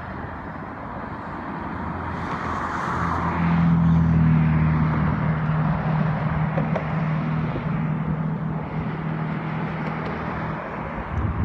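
Motor vehicle driving past on the road. Its engine hum and tyre noise build from about two seconds in, are loudest around four seconds, hold steady, then fade out near the end over continuous traffic noise.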